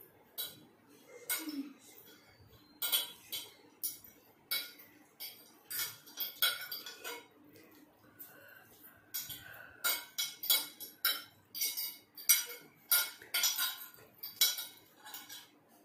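Metal spoons and forks clinking and scraping against ceramic plates in quick, irregular taps as noodles are scooped up and eaten.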